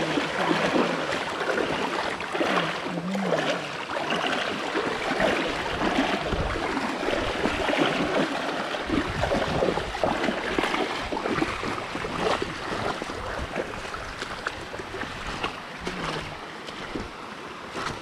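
Feet splashing irregularly through river water while wading across, over the steady rush of the flowing stream.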